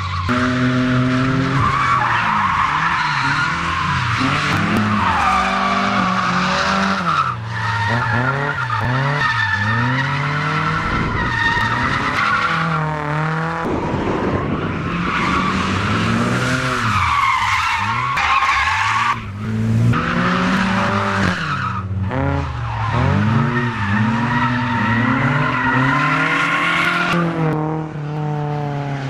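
Drifting cars, among them a BMW E30 coupé, with engines revving up and down over and over under throttle and tyres squealing continuously as the cars slide sideways.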